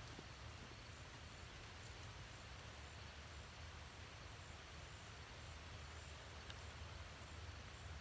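Near silence: faint, steady outdoor background with a low rumble.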